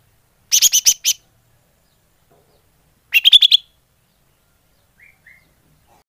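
Green leafbird (cucak ijo) calling: two quick bursts of about five sharp, high notes each, some two and a half seconds apart, then two faint short notes near the end.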